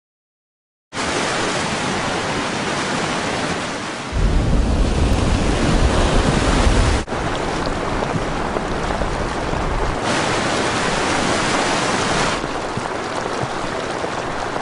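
Floodwater rushing over open ground: a continuous noisy wash of moving water, starting about a second in and changing abruptly between shots, with a heavier low rumble from about four to seven seconds.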